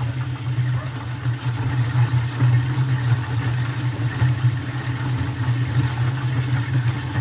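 Corn sheller machine running steadily: a continuous low hum with a rougher noise above it.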